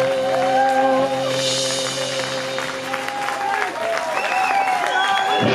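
Live rock band holding a sustained final note that fades out about halfway through. The audience cheers and applauds over it, with rising and falling shouts near the end.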